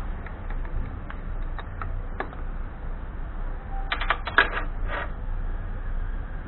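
Metal clicks and clinks of a 10 mm wrench working the nut on the starter motor's cable terminal: scattered light clicks, then a quick run of sharper clicks about four seconds in.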